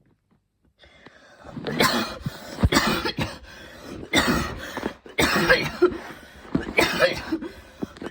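A woman's intense coughing fit: after about a second of quiet, a long run of loud coughs comes in quick succession, one after another every half second or so.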